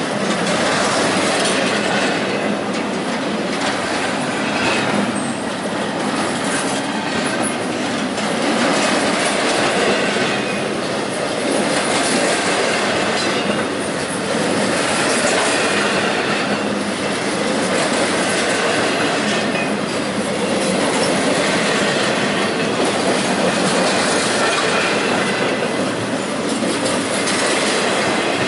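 Freight train of empty double-stack intermodal well cars rolling past close by: a steady clatter of steel wheels on the rails that swells and eases every two to three seconds as each car's wheel sets go by.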